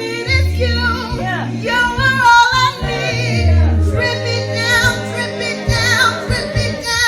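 A cappella gospel singing: a female lead voice with vibrato over a vocal group holding sustained harmonies and a low bass line, with no instruments.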